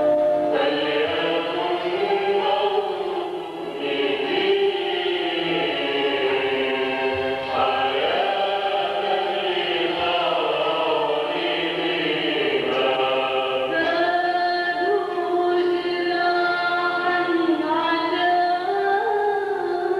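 A woman singing a slow Arabic hymn, with long held notes over a choir-like backing.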